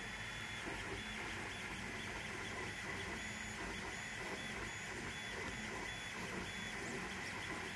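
Balco 3D printer running a print: its motors whir steadily as the print head and bed move, with short high tones coming and going.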